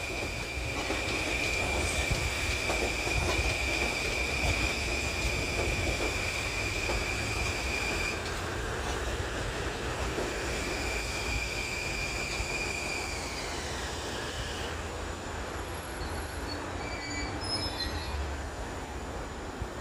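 Long Island Rail Road train running through the station with a steady high-pitched squeal from the wheels on the rails, over a low rumble. The squeal breaks off about eight seconds in, comes back, then slides down in pitch and fades near the end.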